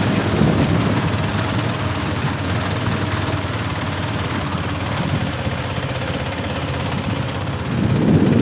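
Tour boat's engine running steadily, getting louder near the end.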